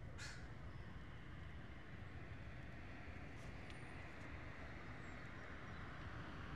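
Distant road traffic: a steady low rumble with a faint hiss over it, and a brief high chirp just after the start.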